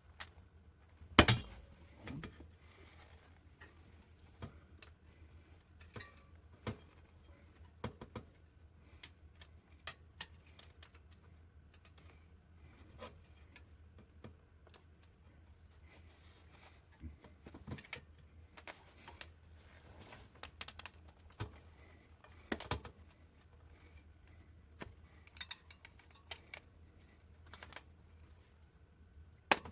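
Irregular clicks, taps and knocks of hands working on a wheelchair wheel and tyre, with one sharp knock about a second in, over a low steady hum.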